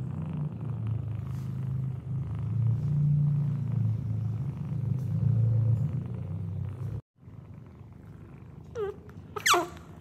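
Domestic cat purring while nursing, a steady low rumble that stops suddenly about seven seconds in. Near the end, two short, high squeaks from a young animal, each falling in pitch.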